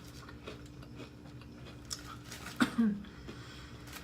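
Close-up chewing and mouth sounds of someone eating, with a louder short sound about two and a half seconds in, over a faint steady hum.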